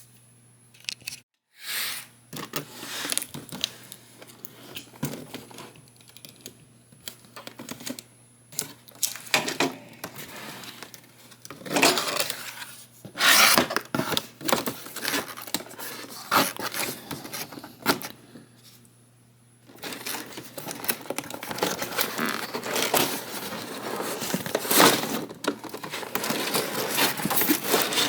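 Toy box packaging being opened and handled by hand: irregular rustling, crinkling and tearing, with a couple of louder rips in the middle and almost unbroken rustling in the last third.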